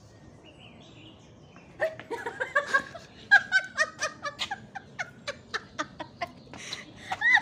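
A woman laughing in a long run of short, rapid bursts, starting about two seconds in.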